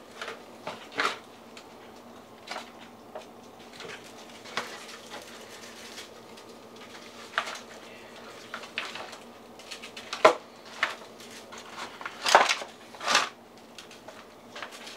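Seasoning being shaken from a spice shaker over raw chicken in a disposable aluminium foil pan, with the foil pan handled: scattered light taps, rattles and crinkles, and a few sharper clicks about ten seconds in and again near the end.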